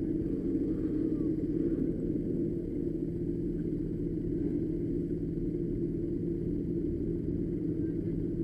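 Street go-kart running steadily at cruising speed: an even, low engine drone with road rumble that holds without change.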